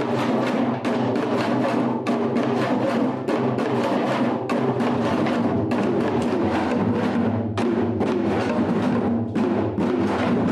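Korean traditional drumming on janggu, the hourglass drum: a steady rhythm of rapid strikes.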